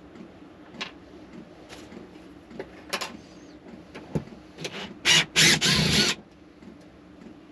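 A few light clicks and knocks of handling, then about five seconds in a DeWalt cordless drill runs in two short pulses, about a second in all, driving a screw through the retaining bar into the wood wall.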